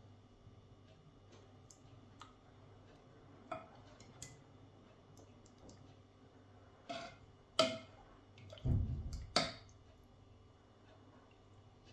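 Household objects being handled: scattered light clicks, then a few sharp, louder knocks about seven and nine and a half seconds in, with a short low rumble between them.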